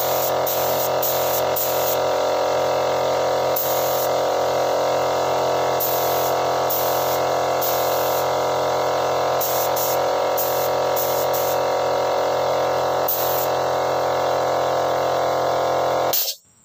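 Air compressor running steadily, with a spray gun hissing in many short bursts as its trigger is pulled for each pass of duco lacquer. The sound cuts off suddenly near the end.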